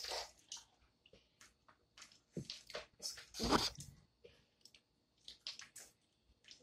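Boiled peanuts being shelled and eaten close to the microphone: a string of short wet cracks, squishes and chewing sounds, with a louder crackling burst a little past halfway.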